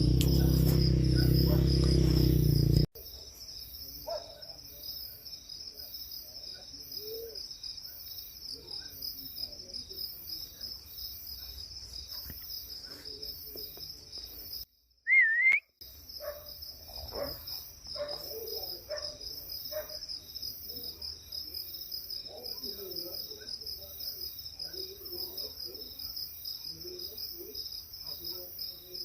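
Night chorus of crickets: a steady, fast-pulsing high trill. For the first three seconds a loud low rumble covers it, then cuts off abruptly. About halfway a short, loud warbling high tone stands alone for about a second.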